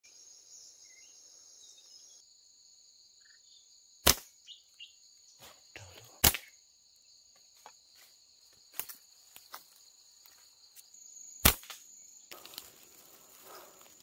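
Steady high-pitched chorus of insects, broken by three loud sharp cracks about four, six and eleven seconds in, with a few fainter clicks between them.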